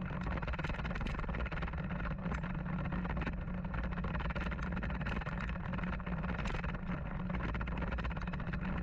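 Bicycle tyres rolling over loose gravel, a steady crunching hiss with small scattered ticks, under a constant low rumble of wind buffeting the camera's microphone.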